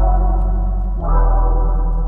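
Background music: sustained synthesizer chords over a deep bass, with a new chord struck about a second in.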